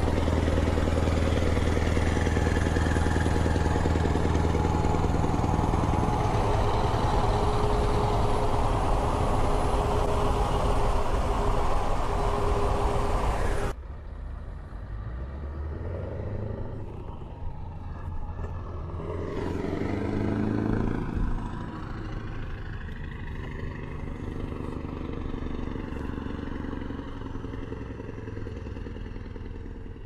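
Scania 164 L 580 V8 diesel truck with open, straight exhaust pipes, running steadily at highway speed, heard from alongside with road and wind noise. About 14 s in the sound cuts to a quieter Scania V8 truck engine heard from the roadside, rising in pitch and level around 20 s as the truck accelerates away.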